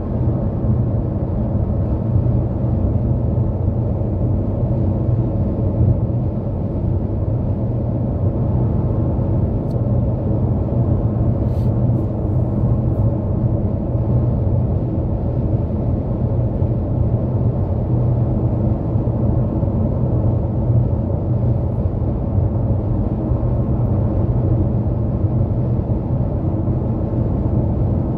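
Steady low road and tyre rumble of a car cruising at highway speed, with a few faint ticks about ten to thirteen seconds in.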